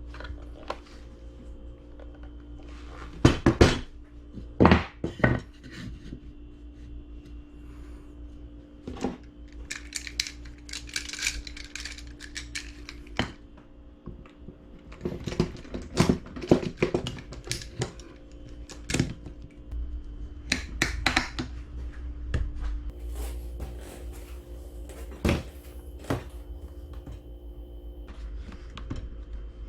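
Hard objects being handled and set down: irregular clacks and clicks, in clusters, over a steady low hum.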